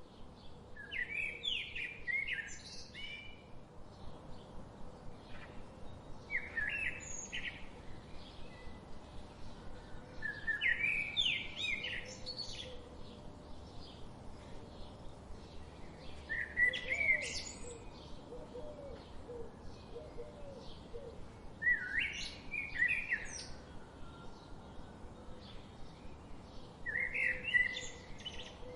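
A bird singing short, varied, high-pitched phrases, six in all, one every five seconds or so, over a faint steady outdoor hiss.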